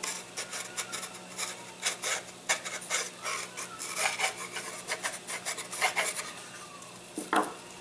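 Irregular scraping, rubbing and clicking of laser-cut balsa fuselage parts being handled and pinched together by hand, over a faint steady hum.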